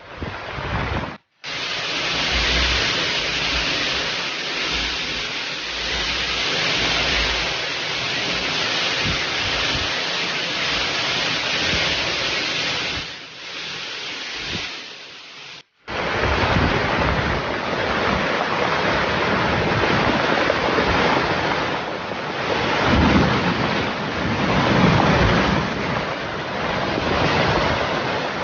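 Loud steady rushing noise of wind and water, with wind buffeting the microphone. It cuts out abruptly twice, about a second in and a little past halfway, then starts again.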